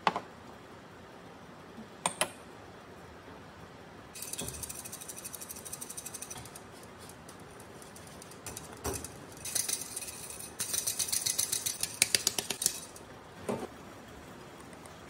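Rice flour being rubbed by hand through a metal-mesh sieve: a scratchy, rhythmic rasp in two spells, the second faster and louder. A few single knocks of bowl and sieve on the counter come between them.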